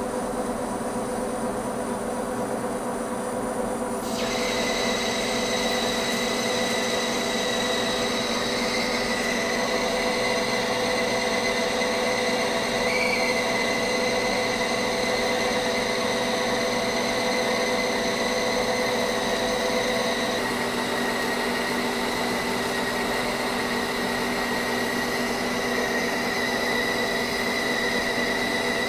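Monarch engine lathe running under power, turning a 1045 steel shaft on its finishing cut: a steady geared whine and hum, with a higher steady whine joining about four seconds in.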